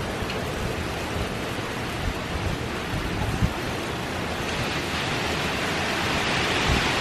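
Hurricane wind and rain: a steady rushing hiss with a few low thumps, the hiss growing heavier about two-thirds of the way in.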